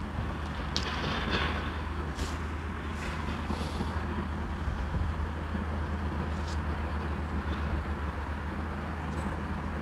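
Steady low outdoor background rumble, with a few faint, short clicks and ticks scattered through it.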